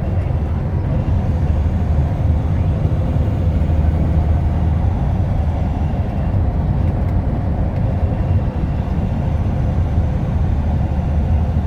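Steady low rumble of engine and road noise inside a moving vehicle.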